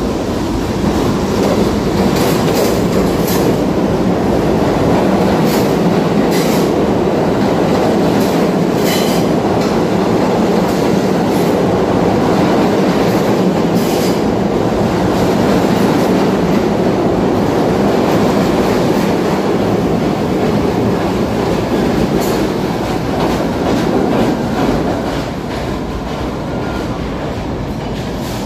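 New York City Subway train of R68A cars accelerating out of a station and running past at close range: a loud, steady rumble of wheels and motors with sharp clacks over rail joints. It fades a few seconds before the end as the last car leaves.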